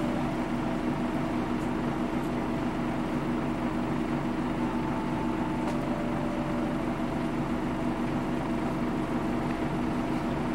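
Nissan Diesel Space Runner KL-UA272KAM city bus's diesel engine idling steadily, with an even, unchanging hum.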